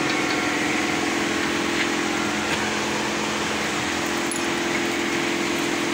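Steady mechanical hum of a machine running, a constant low drone that does not change, with a few faint clicks.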